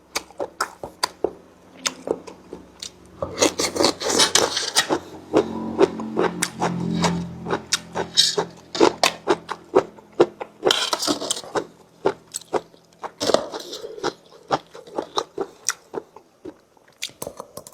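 A person eating khanom jeen (rice noodles in curry) with raw vegetables, close to the microphone: steady chewing with many sharp clicks and crunches, and a few longer noisy bursts.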